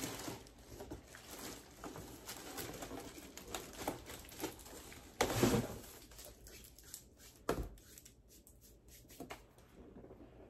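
Rustling and small clicks and knocks of a shipping box's contents being handled, with a louder rustle about five seconds in and a knock a couple of seconds later. The box holds a broken glass oil bottle, and the clicks come as the pieces are picked through.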